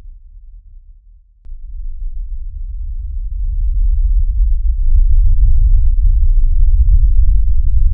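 Deep bass rumble from a film soundtrack's low-frequency effects (LFE) channel heard on its own, with no higher sounds. One rumble fades out, a brief click comes about a second and a half in, and a new rumble then builds over a few seconds to a loud, steady level.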